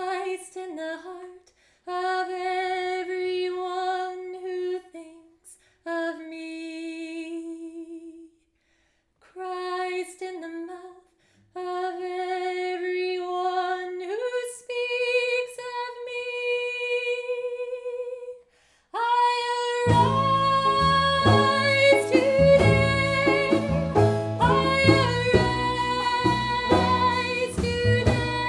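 A woman singing slow, unaccompanied phrases: long held notes with vibrato and short pauses between them. About nineteen seconds in, the full band comes in behind her with a steady beat: upright bass, banjo, harp and hand drum.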